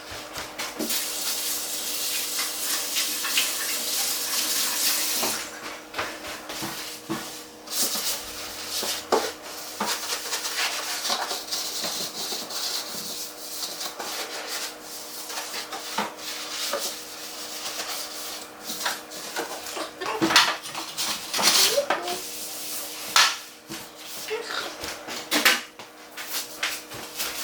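Scrubbing and wiping the inside of a fridge: a steady rubbing hiss for about the first five seconds, then scattered clinks and knocks of items and parts being handled.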